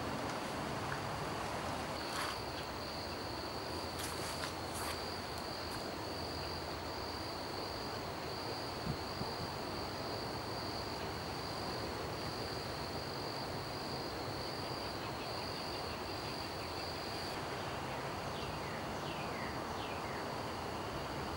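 Insects trilling in a steady high pitch, stopping about three-quarters of the way through, over a constant outdoor background hiss. A few short falling chirps come near the end.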